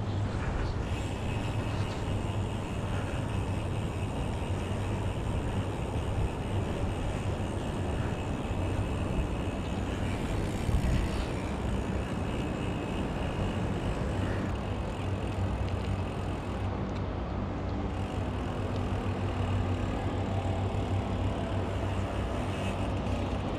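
Wind buffeting an action camera's microphone on a moving bicycle: a steady low rumble.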